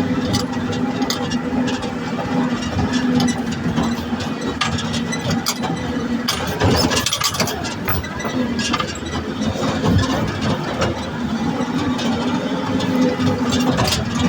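Off-road vehicle's engine running steadily while driving, with frequent knocks and rattles from the body over rough ground.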